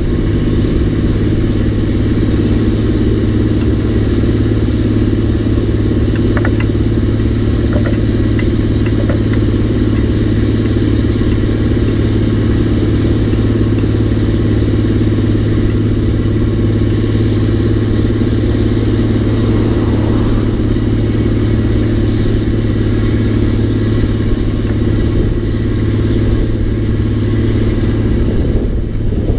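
The Caterpillar 3406 diesel of a Peterbilt 359 runs at a steady pull while hauling a 23-tonne steam engine, heard from behind on the load. A few light rattles from the steam engine's fittings come through about a quarter of the way in.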